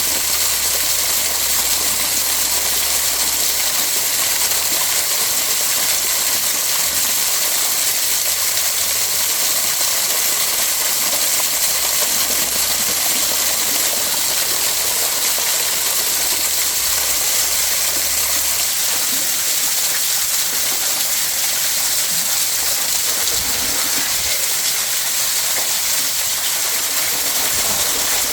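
Waterfall: falling water pouring and splashing in a steady, unbroken rush.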